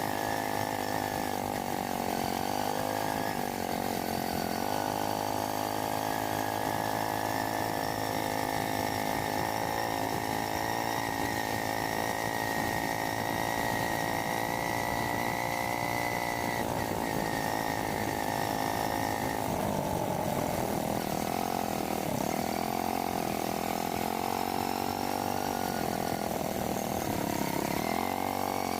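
Small motorcycle engine running steadily as it is ridden, its pitch dipping and rising with the throttle in the second half.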